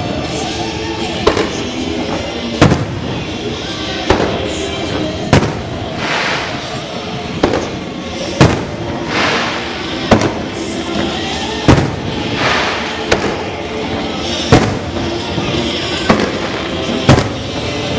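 Aerial fireworks bursting in a steady succession of sharp bangs, about one a second, some followed by a crackling, hissing trail, with music playing underneath.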